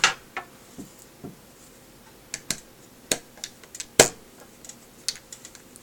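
Scattered sharp clicks and taps, the loudest about four seconds in: a small screwdriver and screws knocking against the plastic casing of video glasses being unscrewed.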